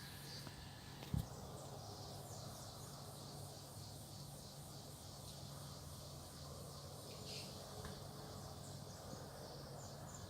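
Cicadas buzzing faintly and steadily, a fast fine pulsing high in pitch, over a low steady hum. A single short knock about a second in.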